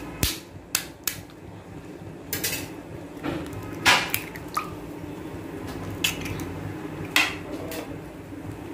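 Eggs being tapped and cracked against a nonstick wok and broken open over hot oil: several sharp knocks and cracks, the loudest about four seconds in, over a low steady hum.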